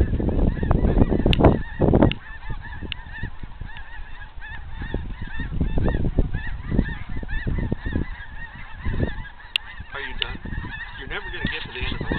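A huge flock of geese flying overhead, many birds honking at once in a continuous, overlapping chorus of calls. A low rumbling noise is heaviest in the first two seconds and comes and goes after that.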